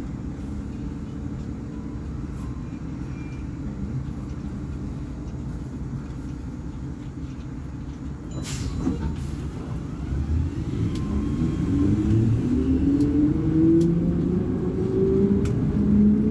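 Volvo B58 bus's six-cylinder diesel engine running steadily at low revs, then a brief hiss about eight seconds in. From about ten seconds in, the engine revs climb with a rising drone as the bus pulls away under load.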